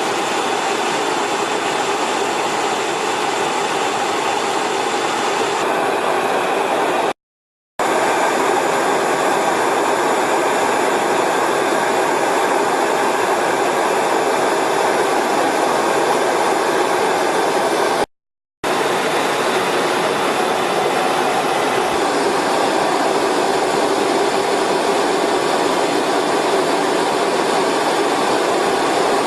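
Jet aircraft engines running on a carrier flight deck: a steady, loud rushing noise with a thin high whine over it, cut off twice by short silences about a quarter and two-thirds of the way through.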